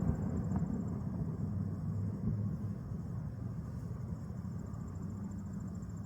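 The echoing rumble of a firework shell burst dies away, leaving a steady low rumble and faint crickets chirping.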